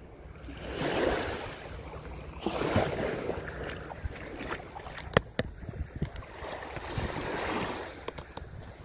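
Small waves washing onto a sandy shore in slow swells, with a few sharp clicks, the loudest about five seconds in.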